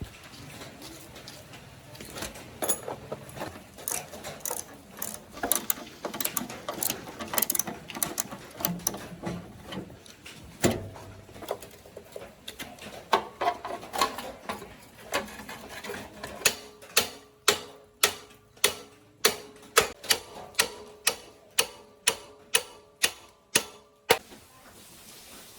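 Irregular metallic clicks and knocks of hand work on metal parts, then a steady run of sharp strikes, about two to three a second, each with a brief metallic ring, that stops about a second before the end.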